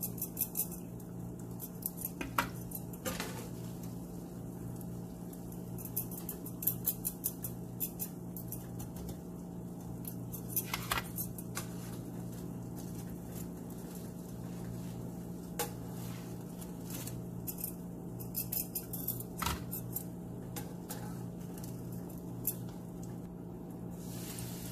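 Metal tongs clicking and tapping against a nonstick frying pan as fried bread pieces are lifted out of hot ghee and fresh slices are laid in. Scattered sharp clicks over a steady low hum.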